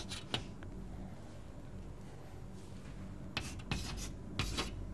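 Hand-writing strokes, short and scratchy: one just after the start, then a quick run of several in the last second and a half, over a steady low electrical hum.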